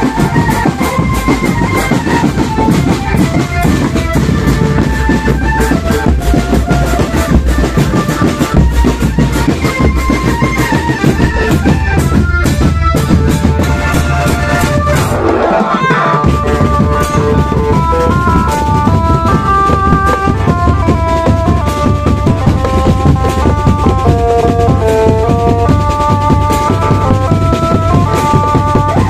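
A marching drumband playing a song: snare, tenor and bass drums beating with an electronic keyboard melody over them, amplified through a horn loudspeaker. About halfway through, the low end sweeps downward and breaks off briefly, then the keyboard melody carries on more prominently over the drums.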